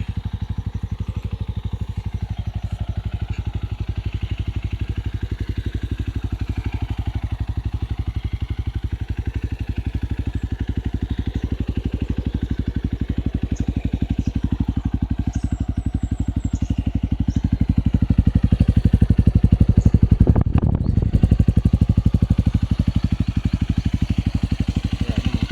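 Honda CRF150's single-cylinder four-stroke engine idling steadily through an Exos X6 aftermarket exhaust, in a rapid even beat. It swells louder for a few seconds about three-quarters of the way through, then settles back to idle.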